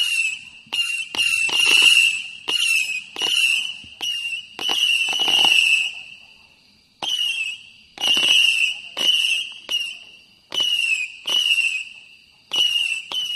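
Empire Fireworks' Omega firework going off as a rapid run of whistling shots, about two a second. Each shot starts sharply with a short high whistle that dips a little in pitch. There is a break of about a second past the middle.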